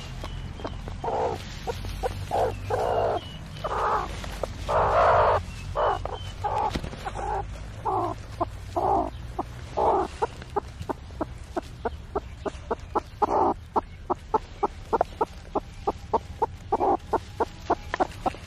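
Hen clucking. Longer clucks come in the first half, then a quick run of short clucks, about three a second. Faint high peeps, likely from her newly hatched chicks, sound in the first few seconds.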